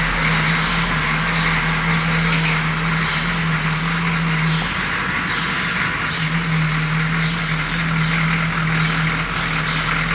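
Military Humvee driving, its engine giving a steady low drone over constant rushing road and wind noise. The drone drops away for a second or two about halfway through, then comes back.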